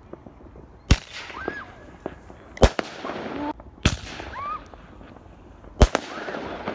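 Fireworks going off: four sharp bangs, roughly one to two seconds apart, each followed by a crackling hiss.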